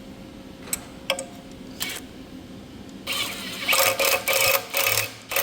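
Ratchet wrench turning jacking bolts to draw an engine timing cover off, clicking in short repeated strokes about two a second from about three seconds in, after a few single clicks and taps.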